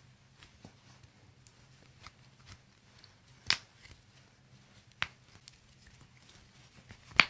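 Three sharp pops of wrist and hand joints cracking as they are manipulated in a chiropractic wrist adjustment, spread over the second half, the last the loudest.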